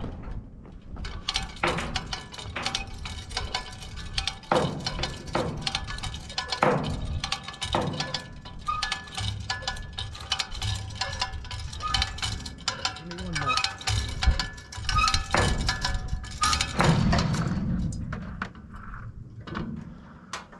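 Irregular metallic clanks and knocks from the steel sections and chains of a telescoping boom lift being worked by hand, with a few short high squeaks in the middle.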